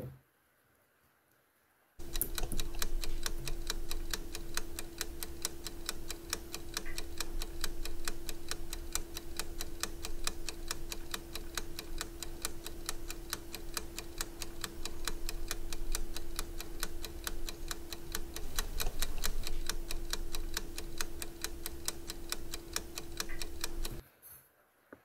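Fast, even clock ticking over a steady low tone: a stopwatch sound effect that starts about two seconds in and cuts off abruptly near the end, timing how long the LED timer circuit keeps its strip lit. A single short click comes right at the start.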